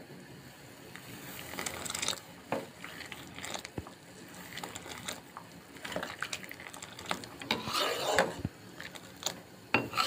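Kahwa (water with saffron and green cardamom) boiling in an aluminium pot, with a steel ladle stirring and scooping it in the second half, sloshing the liquid and clinking against the side of the pot.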